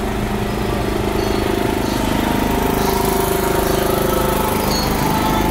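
An engine running steadily with a continuous droning hum.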